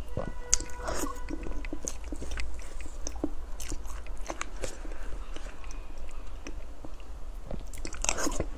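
Close-miked eating of soft sponge-and-mousse cake: wet chewing with irregular mouth clicks and smacks, and a fresh spoonful bitten into about eight seconds in.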